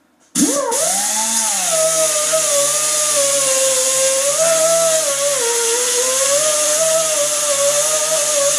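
Pneumatic (air) angle grinder grinding down steel welds. It starts suddenly about a third of a second in and spins up, then runs with a whine that wavers in pitch over a loud hiss. It begins to wind down right at the end.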